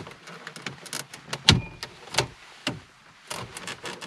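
Plastic centre-console trim of a Ford Mondeo Mk4 being pried loose with a plastic trim removal tool: an irregular run of sharp plastic clicks and snaps as the retaining clips give, the loudest about one and a half seconds in.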